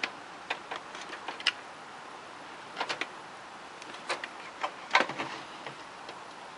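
Irregular small clicks and knocks of computer parts being handled inside a desktop PC case as drives and cables are fitted back, a few at a time with short gaps between them, the loudest about five seconds in.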